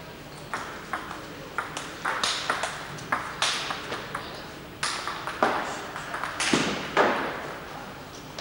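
Table tennis ball being hit back and forth in a rally, sharp pings off the bats and the table. The hits start a few at a time, then come quickly and loudly for several seconds, the loudest about seven seconds in, before the rally ends.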